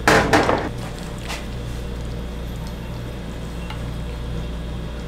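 A ceramic bowl set down on a stainless-steel counter with a clatter, then stir-fried udon noodles slid out of a pan into it with chopsticks, soft wet squishing and scraping over a steady low hum.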